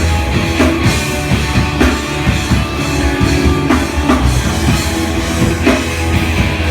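Rock music with a drum kit and guitar, played steadily at full volume.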